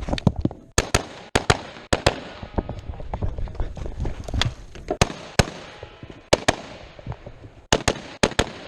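A string of rifle shots fired at match pace: about fifteen sharp cracks in quick clusters, each cluster a few shots fast, with short pauses between them.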